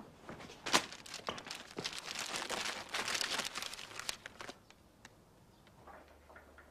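Crinkling and rustling of something being handled: a dense run of small crackles lasting about four seconds, then a few faint ticks near the end.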